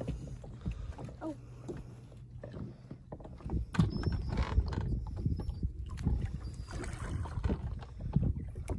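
Wind on the microphone and small waves lapping against the boat's hull, with scattered faint knocks and rustles of hands handling a just-caught crappie.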